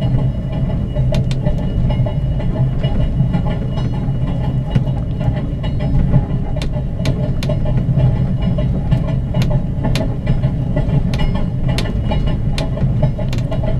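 Spirit of the Outback passenger train running slowly on the rails, heard from inside the carriage: a steady low rumble with frequent irregular clicks and knocks from the wheels on the track.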